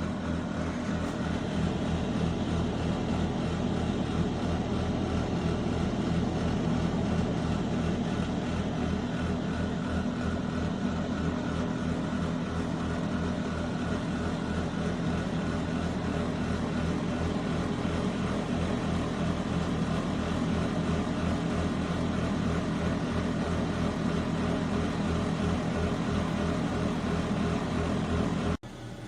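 A steady mechanical whir, like a fan or motor running, with a fast low flutter underneath. It cuts off suddenly near the end.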